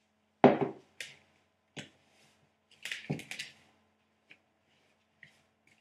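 Spoon knocking and scraping against the side of a mixing bowl while stirring flour and egg into a stiff cake batter: a few irregular knocks, the loudest about half a second in and a quick cluster around three seconds in, then a few light ticks.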